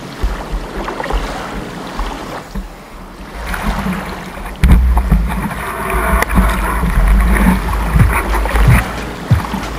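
Water splashing and washing over a board-mounted action camera on a stand-up paddleboard, with a heavy low buffeting rumble on the microphone. It gets markedly louder about four and a half seconds in.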